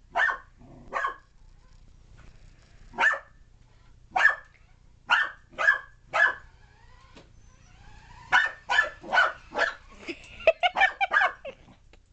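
Corgi puppy barking in short, sharp single barks, spaced out at first and then coming in a quick run of several barks near the end.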